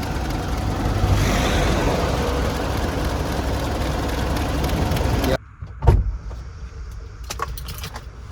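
Mitsubishi Pajero Sport diesel engine running steadily at idle. The owner says a faint noise is still there and takes it for a drive belt problem. The sound cuts off suddenly about five seconds in, followed by a single thump.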